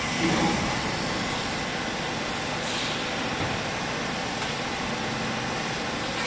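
Hydraulic clothes baler running: a steady mechanical noise from its motor and pump, with a brief low thud about half a second in.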